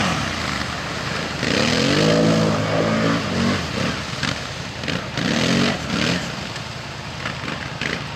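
Quad bike (ATV) engines revving in bursts, the pitch rising and falling as the quads drive through a muddy creek bed. The engines fade somewhat towards the end.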